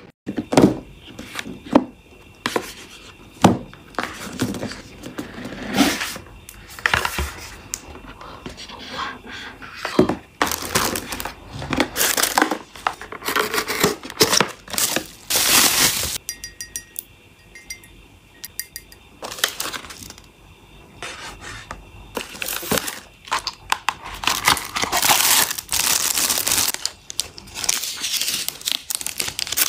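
Packaging being handled and opened by hand: cardboard and plastic crinkling and tearing in many short, irregular bursts. Near the end, protective plastic film is peeled off acrylic dollhouse pieces, giving a longer stretch of crinkling.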